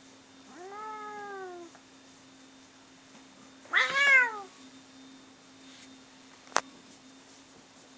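Domestic cats yowling at each other in a standoff: two drawn-out calls that rise and then fall in pitch, the second, about four seconds in, louder. A sharp click comes near the end, over a faint steady hum.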